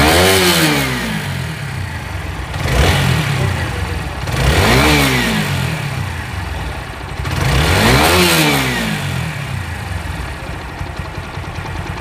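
A TVS 4V motorcycle's single-cylinder engine idling and revved by hand at the throttle cable: three rises and falls in revs, with a smaller blip between the first two. After the clutch repair it runs with no abnormal noise, a sound called perfect.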